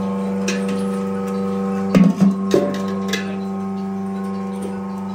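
Milking equipment running with a steady, fixed-pitch motor hum. A few sharp metallic clanks come about two to three seconds in.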